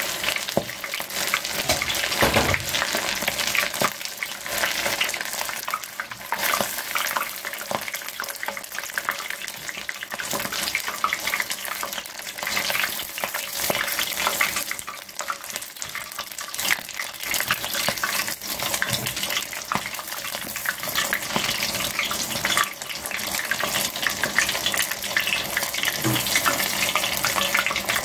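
Battered oysters deep-frying in hot oil: a steady, dense crackling sizzle.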